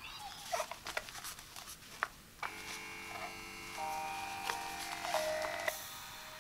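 Handling clicks and rustle of a RENPHO eye massager's fabric-padded mask, then about two and a half seconds in its internal motor starts running with a steady electric hum that shifts pitch a few times.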